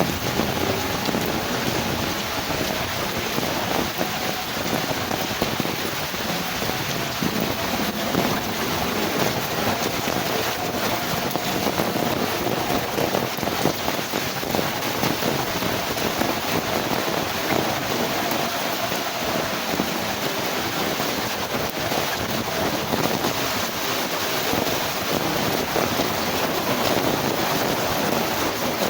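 Heavy rain falling steadily in strong wind, a dense, even patter of countless drops.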